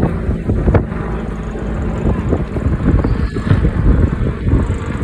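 Wind buffeting the microphone: a loud, uneven rumble.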